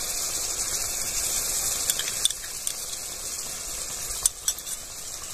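Eggplant curry with yogurt just poured over it sizzling in a metal karahi over the fire: a steady hiss with a few faint clicks.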